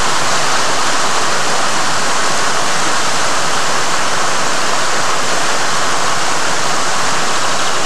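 Small waterfall pouring into a rocky stream pool: a loud, steady rush of running water.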